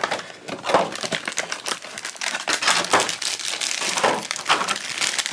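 Thin clear plastic packaging crinkling and crackling irregularly as hands squeeze and unwrap it from a blind-box figure.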